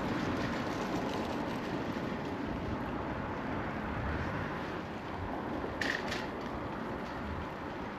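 Steady wind and rolling noise from a camera mounted on a moving bicycle, with one short high click about six seconds in.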